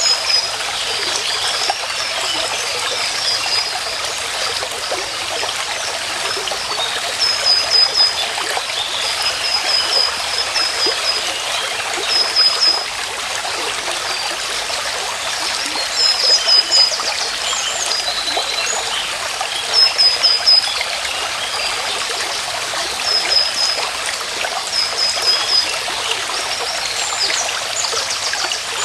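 Running water of a stream, steady throughout. Over it, a small bird repeatedly gives short, high, rapid series of notes every two to four seconds.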